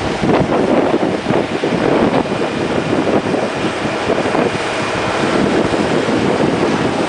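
Caterpillar D8N crawler dozer working under load as its blade pushes a pile of dirt: a steady, loud diesel engine and machine noise.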